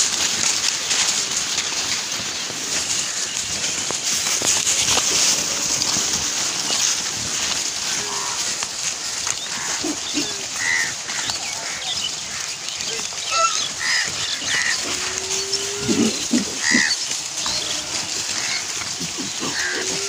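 Pigs rooting through plastic rubbish: a steady rustling and crackling of litter, with short squeals and grunts from about halfway through, several together near three-quarters of the way in.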